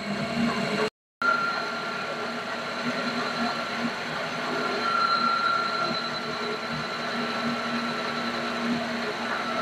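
Small bench lathe running while a parting tool is fed slowly into a spinning brass cutlass bearing: a steady mechanical hum with a steady high whine. The sound drops out briefly about a second in.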